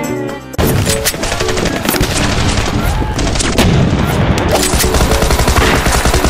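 Short stretch of music, then about half a second in a sudden, continuous burst of rapid machine-gun fire starts: a cartoon gunfire sound effect of quickly repeated shots that continues with music underneath.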